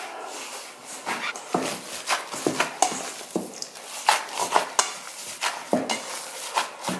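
Raw minced beef being kneaded and squeezed by a gloved hand in a stainless steel bowl: irregular squishes and slaps in short runs.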